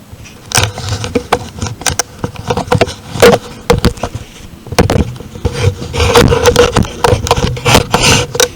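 A run of irregular knocks, clicks and scrapes, as of equipment being handled, starting about half a second in, with a faint steady hum underneath.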